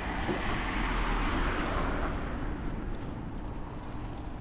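Road traffic: a car passing, its noise swelling over the first couple of seconds and fading away after that, with a faint steady hum left near the end.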